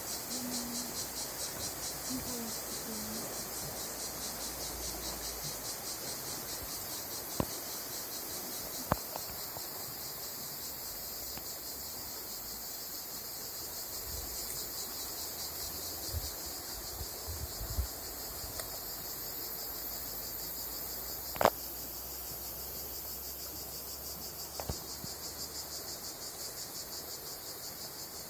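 A dense, steady, high-pitched chirring of insects with a fast pulsing rhythm. A few sharp clicks stand out, the loudest about three-quarters of the way through.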